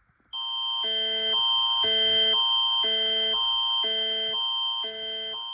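Canadian emergency alert tone (Alert Ready's Canadian Alerting Attention Signal): a steady high tone over two chords that alternate about twice a second, cutting off abruptly near the end.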